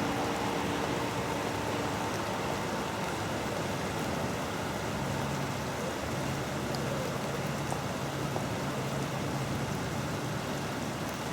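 Heavy rain and rushing flash-flood water, a steady even hiss. A faint low hum sits underneath from about halfway through.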